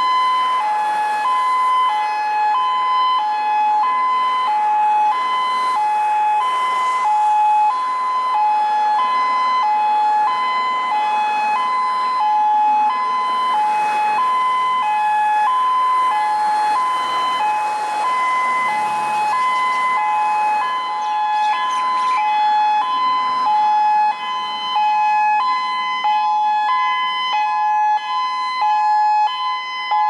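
Federal Signal Modulator 1004 electronic outdoor warning siren with a DSA 2 sounding its hi-lo signal: a loud two-tone call switching evenly back and forth between a higher and a lower pitch, each tone lasting about two-thirds of a second.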